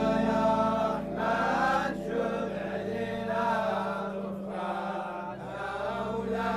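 Men's voices chanting Sufi dhikr together, the phrases rising and falling over a steady held low drone.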